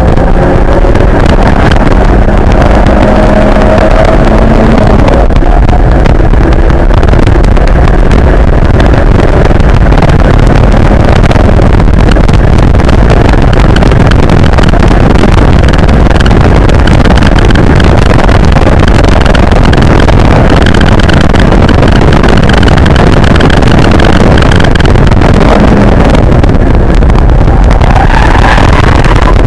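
Nissan 240SX's 2.4-litre KA24DE four-cylinder engine, heard from inside the cabin, pulling hard on track: very loud, with the pitch climbing in the first few seconds and again near the end.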